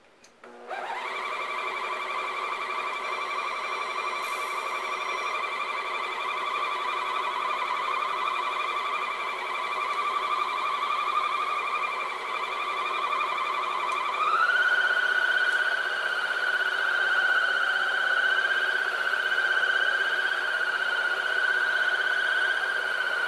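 Shark Sonic Duo floor scrubber switching on with a quick rising whine, then running with a steady high-pitched motor whine as it scrubs stone tile. About two-thirds of the way in, the whine steps abruptly to a higher pitch and gets louder.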